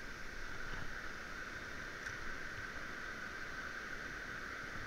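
Steady hiss of water, even throughout with nothing standing out.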